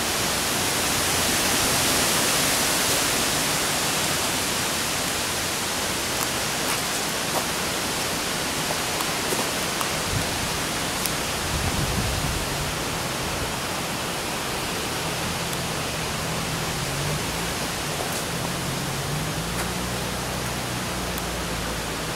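Steady rushing outdoor noise, an even hiss with no clear single source, and a faint low hum that wavers in pitch from about halfway through.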